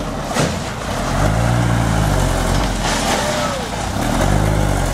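Diesel engine of a Mitsubishi Fuso dump truck running with the tipper bed raised as the truck creeps forward, revving up and easing off twice. A short rising-and-falling squeal comes in about three seconds in.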